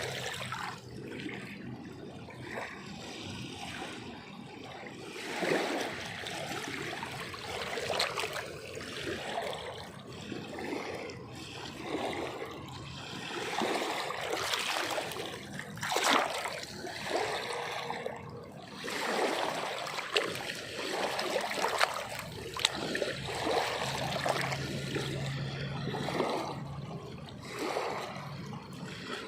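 Water splashing and trickling in irregular surges, with short sharper splashes scattered through.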